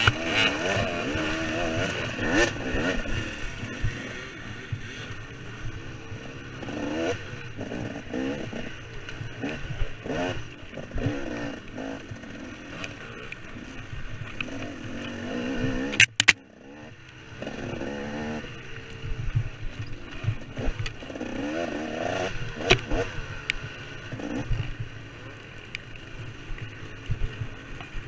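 KTM 300 two-stroke dirt bike engine revving up and down under changing throttle, with clatter and knocks from the bike over rough ground. About halfway through, a sharp knock is followed by a brief drop in the sound.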